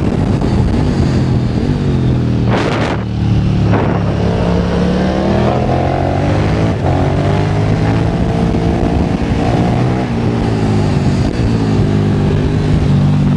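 KTM 1290 Super Duke R's V-twin through a full Akrapovic titanium exhaust, heard from onboard as the bike accelerates and backs off through bends in second gear, its engine note rising and falling several times over a steady rush of wind.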